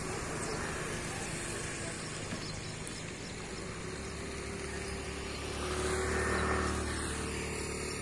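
Steady hum of road traffic, with one vehicle passing and growing louder about six seconds in, then fading.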